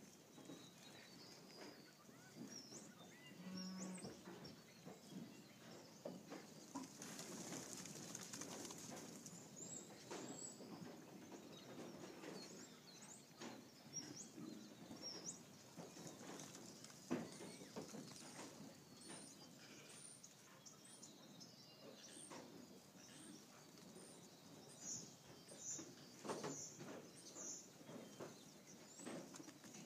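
Faint sounds of a flock of Jacob lambs: scattered soft thuds as they run and jump on the dirt, with a few quiet bleats. A run of short, high chirps comes near the end.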